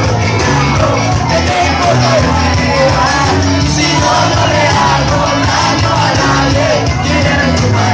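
Loud music with a steady bass beat and singing, with shouting voices over it.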